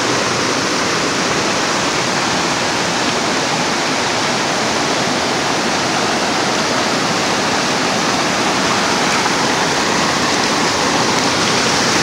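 Nantahala River rushing over rocks in small rapids and cascades: a steady sound of white water, growing slightly louder near the end.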